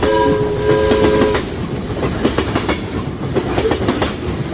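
A train whistle sounds a chord of several tones in two blasts, then the wheels run on with a rhythmic clickety-clack over the rail joints.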